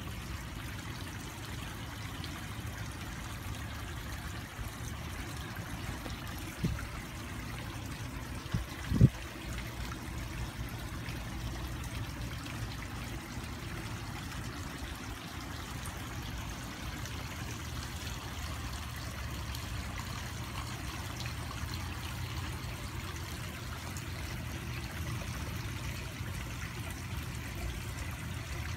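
Steady trickle of running water in a garden koi pond, over a steady low rumble. A few short low thumps come between about six and nine seconds in, the last the loudest.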